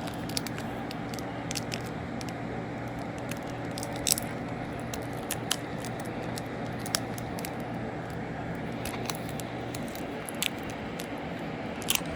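Scattered sharp clicks and light scrapes of a utensil on cookware over a steady low kitchen hum; the lowest tone of the hum cuts off about ten seconds in.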